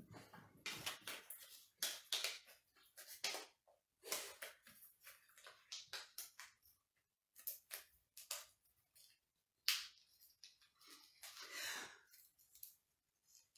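A small, tightly folded paper slip being unfolded by hand, crinkling and rustling in short irregular bursts.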